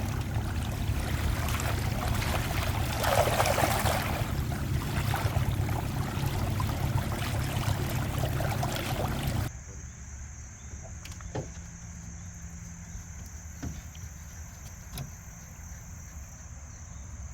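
Boat motor running under way, with water and wind noise, then cut off suddenly about nine and a half seconds in. After it stops, a steady high insect chirring and a few sharp knocks are left.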